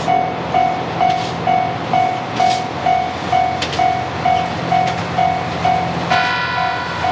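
Japanese level-crossing alarm bell dinging steadily about twice a second, over the low steady hum of an approaching KiHa 261 series diesel express. About six seconds in, a train horn sounds for roughly a second.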